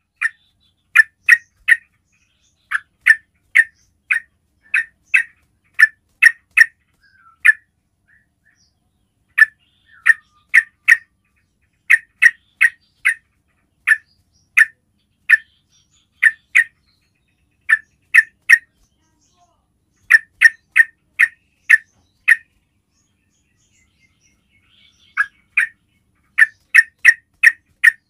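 Yellow-vented bulbul (trucukan) giving its basic call: short, sharp, loud notes in quick groups of two to four, broken by two brief pauses.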